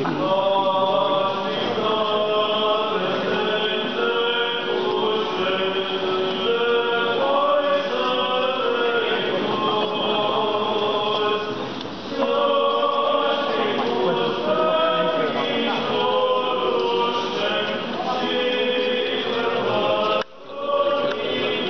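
Group of voices singing an Orthodox church chant together, with a short sudden break about a second before the end.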